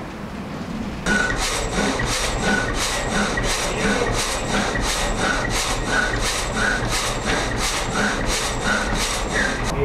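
Windmill-driven reciprocating frame saw cutting through a log: a steady rhythm of rasping saw strokes, starting about a second in.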